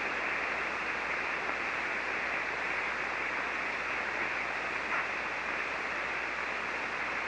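Steady hiss of band noise from an HF ham radio receiver on the 40-metre band in single-sideband mode, heard on an open frequency while no station is transmitting.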